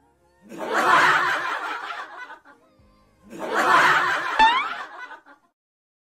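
Laughter in two bursts of about two seconds each, the second with a short rising squeal partway through.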